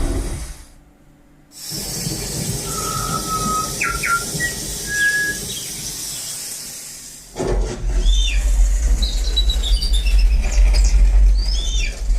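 Demo audio played through a 5.1 digital amplifier and its speakers. The sound cuts out briefly about a second in, then comes back as a high hiss with short whistles and chirps, and heavy deep bass comes in suddenly about seven seconds in.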